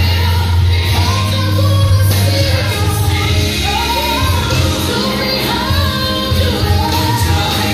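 Gospel song with a woman singing a melody that glides up and down over a heavy, steady bass line.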